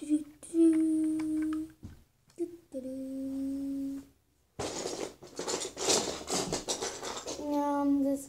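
A child humming two long, steady held notes, then a few seconds of rustling noise with small clicks, then humming a sliding tune again near the end.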